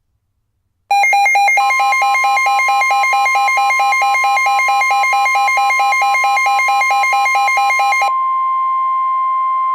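A two-pitch electronic alert alarm warbling about four times a second for about seven seconds. Under it and then alone runs the steady 1050 Hz NOAA Weather Radio attention tone, which announces a warning broadcast about to follow.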